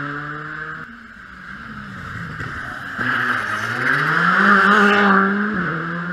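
Modern R5 rally cars at a hairpin. One car's engine fades away in the first second, then the next car's engine grows louder as it arrives. Its pitch climbs as it accelerates hard through the bend, holds high, and dips briefly near the end at a gear change.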